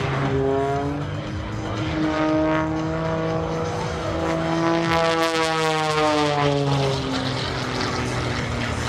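Pitts aerobatic biplane's piston engine and propeller at power in a dive. The note climbs in pitch as the plane comes in, then drops away after about six seconds as it passes by low.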